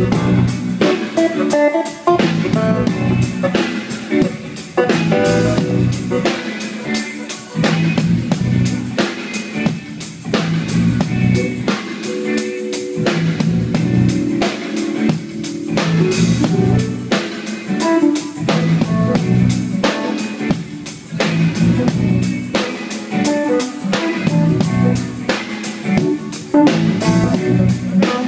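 Drum kit and electric guitar playing together during a soundcheck, with a steady beat of drum hits under the guitar notes.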